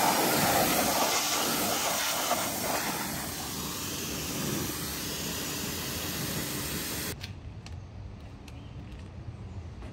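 A jet of water from a hose spray gun hissing as it hits a car wheel and tyre to rinse off cleaner. The spray cuts off suddenly about seven seconds in, leaving a much quieter background with a few light clicks.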